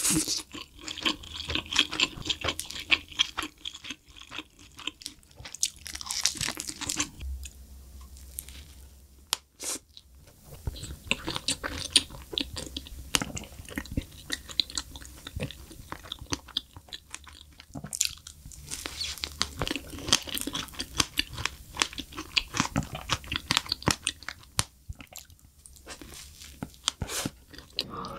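Close-miked eating sounds: bites and crunching into a seaweed-wrapped triangle kimbap, then the chewing of a soft strawberry cream sandwich, dense with small crackles and mouth clicks.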